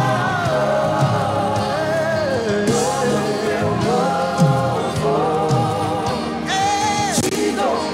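Live contemporary worship band playing while a group of singers sing a slow, held melody in Portuguese.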